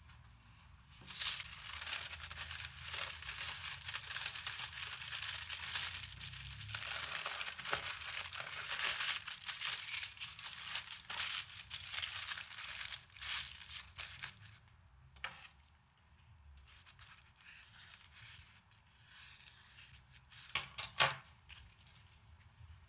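Aluminium foil being crumpled and folded by hand: a dense crackling that starts about a second in, thins out to scattered crinkles after about thirteen seconds, with a couple of sharp clicks near the end.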